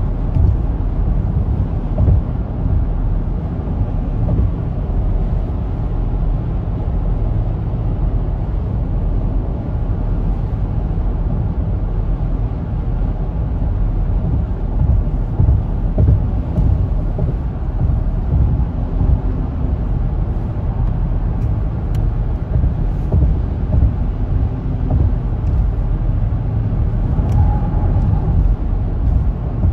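Steady low rumble of road and tyre noise inside a car's cabin while it cruises at highway speed.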